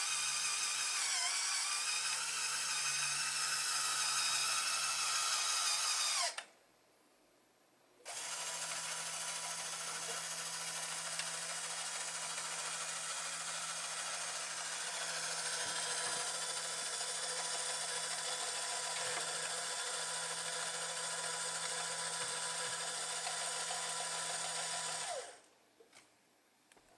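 LEGO Power Functions electric motor driving the model's winch, a steady geared whine. It runs for about six seconds, stops for about two, then runs again for most of the rest, its pitch dropping as it stops near the end.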